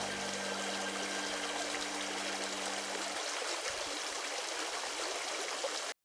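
A brook running: an even rush and trickle of water that cuts off suddenly just before the end. A few low held tones sound over it until about three seconds in.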